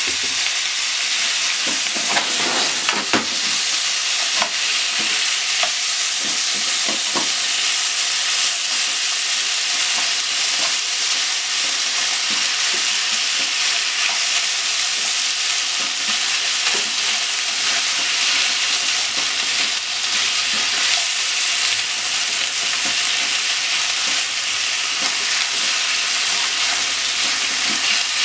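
Sliced pork and onion sizzling steadily in a frying pan as they are stir-fried, with cooking chopsticks tossing the food and clicking against the pan now and then.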